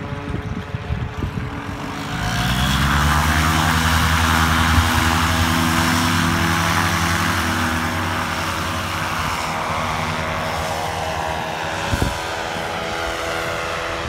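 Paramotor engine and propeller opening up to full throttle about two seconds in, then running steadily at high power for takeoff. Gusty wind buffets the microphone before the engine comes up, and there is one sharp click near the end.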